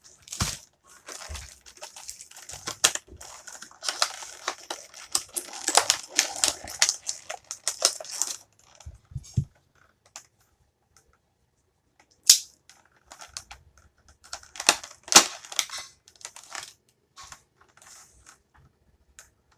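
Plastic packaging of an action figure being handled and unpacked: crinkling and rustling with quick clicks and taps. It is busiest for the first eight seconds, goes quiet briefly, then comes back as scattered sharp clicks and short rustles.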